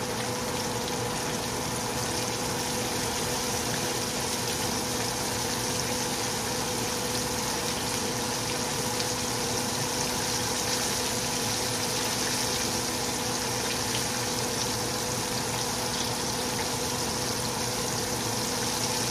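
Breaded pork chops frying in hot oil in a skillet: a steady, even sizzle of bubbling oil.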